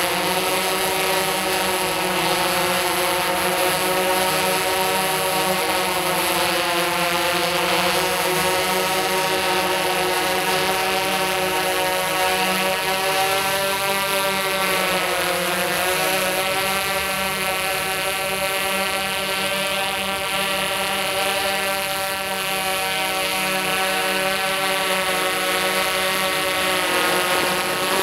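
Tarot X8 coaxial octocopter's eight electric motors spinning DJI 1552 propellers in flight, a steady multi-toned buzz. Its several pitches drift up and down and cross each other, most clearly around a third and a half of the way through, as the motors change speed to hold the craft.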